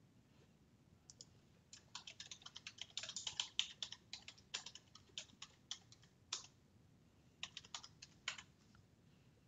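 Typing on a computer keyboard: a run of quick keystrokes starting about a second in, thickest in the middle and thinning out with a few scattered taps toward the end.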